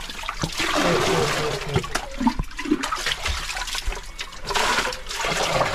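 Shallow muddy water sloshing and splashing as hands and a metal bucket churn it in a small stone-lined well. The splashing swells twice: about a second in and again near the end.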